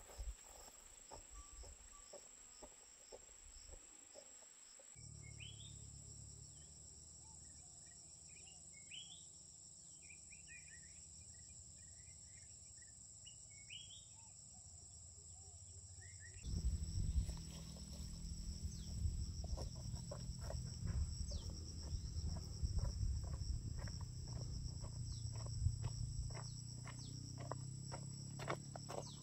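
Insects droning in a steady, high, even tone, with small birds chirping in short calls through the middle stretch. The background changes abruptly twice, and in the last half a louder low rumble with scattered clicks and knocks joins the drone.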